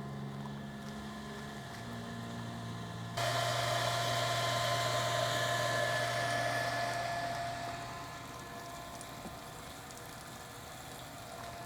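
Small electric water pump running with a steady hum, transferring water from a truck-bed tank into an underground cistern. About three seconds in it turns abruptly louder with a rushing hiss and a steady whine, then eases back down near the end.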